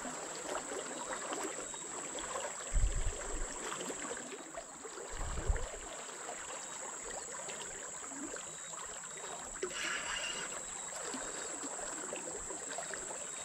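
Fast-flowing river water rushing steadily, with two brief low thumps about three and five and a half seconds in.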